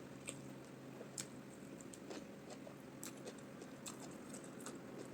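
Close-up mouth sounds of eating: chewing with scattered wet clicks and smacks over a faint steady hum.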